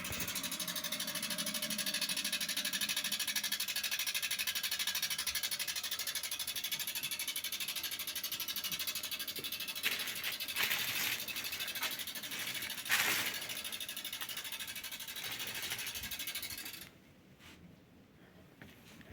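Steady rushing hiss of water running out of a vintage Primus Mini single-tub washer once its motor has stopped, with a few knocks partway through; it cuts off suddenly near the end, leaving faint ticking.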